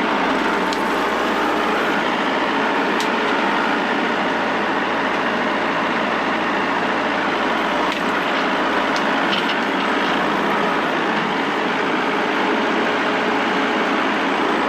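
Farm tractor engine running steadily under a working load, with a few faint clicks over it.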